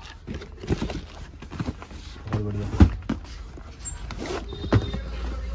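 Cardboard shoe boxes being handled and shifted inside a carton: a string of knocks and scrapes, loudest a little under three seconds in and again near five seconds.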